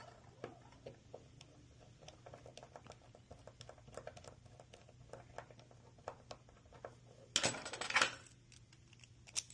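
Small metallic clicks and ticks of a rekeyed mortise lock cylinder and its key being handled, then a louder burst of metallic rattling lasting under a second about seven and a half seconds in.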